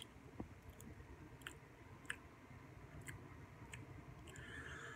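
Faint chewing of a Swedish Fish Oreo sandwich cookie, with a few small scattered crunches and mouth clicks.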